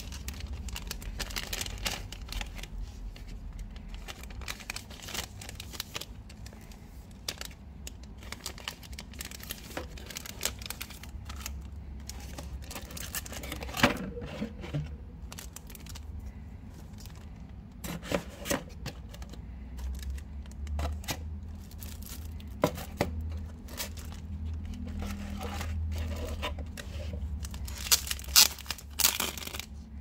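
Clear plastic shrink-wrap crinkling and tearing as a wrapped book is handled and unwrapped, with irregular sharp crackles and taps, loudest in a few bursts near the end. A steady low hum runs underneath.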